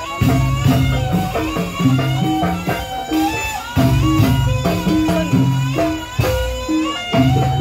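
Music: a melody of held notes over a repeating bass line and a steady drum beat.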